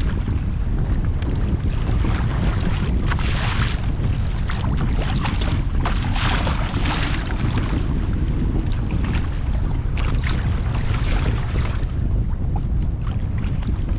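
Strong wind buffeting the microphone in a steady low rumble, with water splashing and sloshing against the boat in several short surges.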